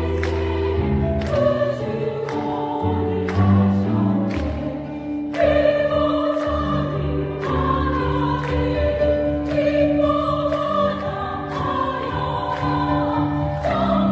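A small church vocal ensemble singing a Christmas hymn with accompaniment; sustained low chords carry the first few seconds, and the voices come in strongly about five seconds in.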